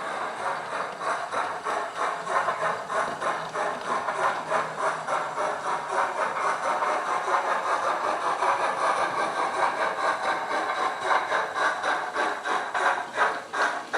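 Sound decoder and tender speaker of a Hornby OO gauge LMS 8F model locomotive playing steam exhaust chuffs in a quick, steady rhythm as the model runs.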